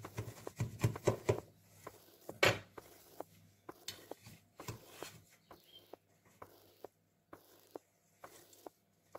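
A knife and a metal slotted spatula cutting and prising a slice out of a baked pie: the crisp pastry crust crackling and crunching, with scattered clicks and taps of the utensils against the metal pie tin. The sharpest knock comes about two and a half seconds in, and the clicks thin out after that.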